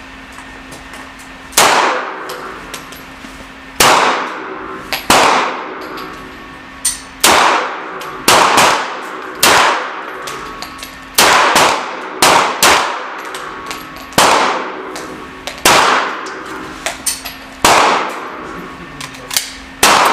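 Beretta M9 9 mm pistols firing on an indoor range: about a dozen loud, irregularly spaced shots, each ringing off the walls, with a few fainter shots between them.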